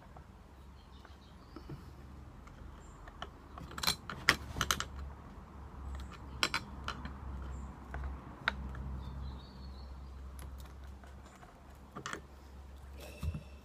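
Irregular metallic clicks and light taps of a chainsaw chain and bar being handled and worked into place, with a few sharper clicks about four to five seconds in.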